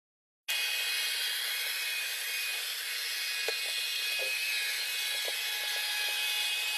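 Robotic vacuum cleaner running: a steady hissing whir with a few faint clicks, starting about half a second in after a moment of dead silence.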